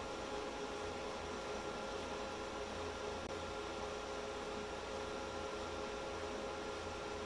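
Dell PowerEdge 2850 rack server's cooling fans running steadily during its boot self-test: an even whirring hiss with several steady whining tones and a low hum underneath.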